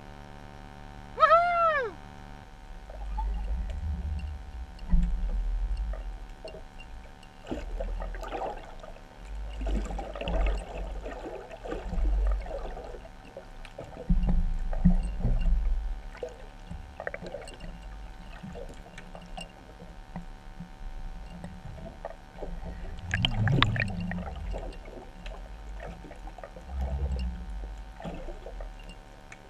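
Muffled underwater sound from a camera held below the surface: low rumbling and sloshing in bursts as water moves over the housing, over a steady hum. About a second in, before the rumbling starts, a short squeal rises and falls in pitch.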